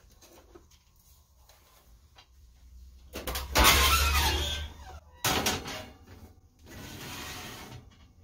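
Electric range's oven door opened and a metal baking sheet put in on the oven rack: after a few quiet seconds, two loud stretches of noise, then a softer one near the end.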